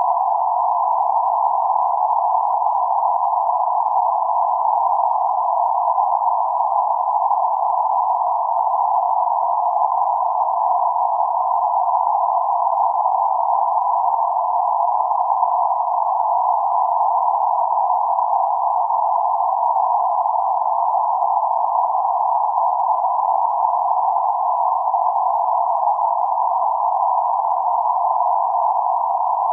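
Steady band-limited noise centred around 848 Hz, a narrow hiss between roughly 500 Hz and 1.5 kHz with nothing above or below, unchanging throughout.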